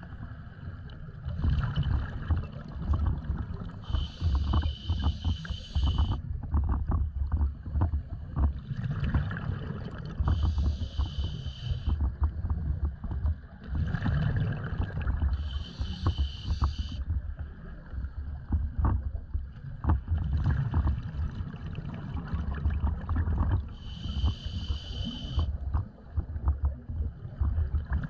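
Scuba diver's regulator breathing underwater: four hissing inhalations about two seconds long and roughly six seconds apart, with exhaled bubbles rumbling and crackling between them.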